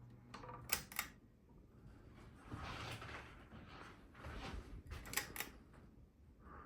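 Two pairs of sharp clicks, one about a second in and another about five seconds in, typical of a ceiling fan's pull-chain switch changing speed. Rustling swells fill the gaps between them, and a low motor hum fades out at the start.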